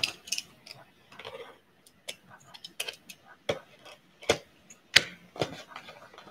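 Irregular sharp clicks and taps with light scraping as a small blade slits the seal on a cardboard hockey card box and the box is handled and worked open.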